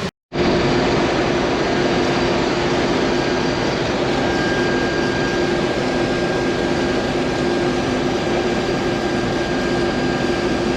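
Combine harvester running steadily: a loud, even machine noise with a constant hum, and a thin steady whine that joins about four seconds in. The sound starts abruptly just after the beginning.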